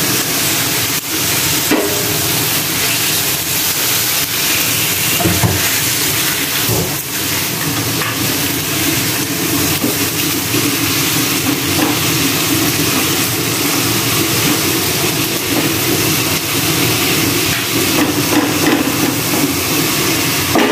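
Chicken pieces sizzling in a nonstick frying pan, stirred with a wooden spatula: a steady hiss with a few scrapes and knocks of the spatula against the pan.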